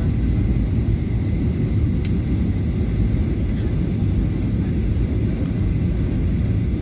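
Steady low rumble of a Boeing 737-800's CFM56-7B engines and airflow as heard inside the passenger cabin, with a faint steady whine and a single sharp click about two seconds in.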